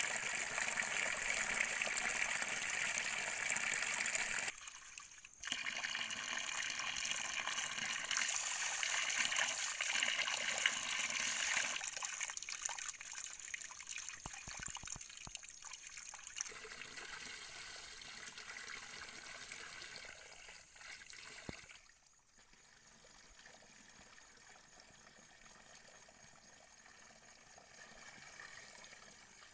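Water pouring from a bamboo pipe spout and splashing into a plate and onto the ground as leafy greens are rinsed by hand. The splashing breaks off briefly about four seconds in and becomes much quieter about twenty-two seconds in.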